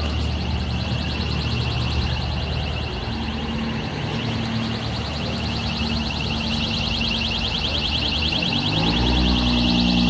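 Burglar alarm sounding, a rapid high-pitched pulsing tone, with a vehicle engine running underneath.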